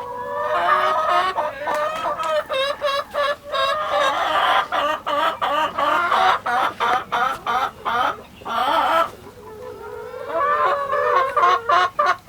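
Several chickens clucking and cackling, many calls overlapping, with a short lull around two-thirds of the way through.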